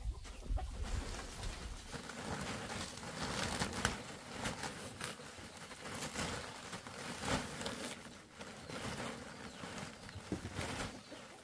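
Large clear plastic bags packed with corn puffs rustling and crinkling as they are handled and strapped to a bamboo pole, with scattered small crackles; the handling stops near the end.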